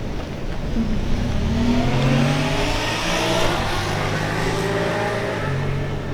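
A motor vehicle's engine passing by: its pitch rises, then holds, and it is loudest around the middle before fading near the end.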